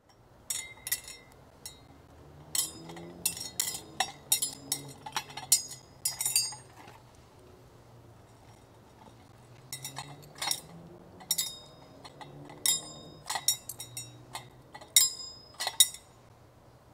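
Communion vessels, a chalice and glass cruets, clinking against each other and the altar as the altar is prepared at the offertory. Two spells of sharp, ringing clinks come several seconds apart, with a pause of a few seconds between them.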